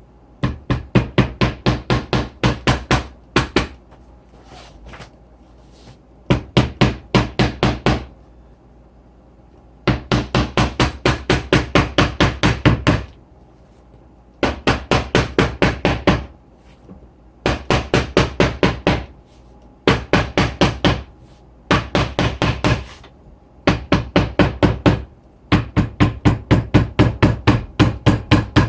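Hammer tapping on leather in quick bursts of about six strokes a second, with short pauses between bursts: setting glued piping onto a leather handbag gusset.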